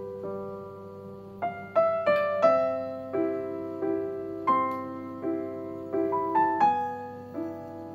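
Background piano music: a melody played over held lower notes.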